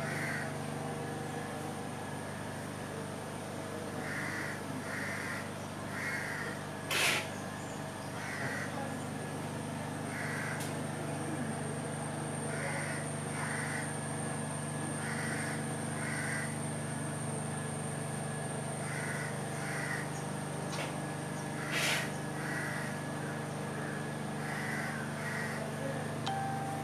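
Crows cawing again and again, short calls in twos and threes every second or two, over a steady low hum. Two sharp knocks stand out, about a quarter of the way in and again about four-fifths through.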